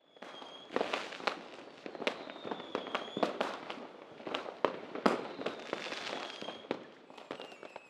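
Fireworks going off: a quick, irregular series of sharp bangs and pops over a steady crackle, with high whistles from the shells now and then.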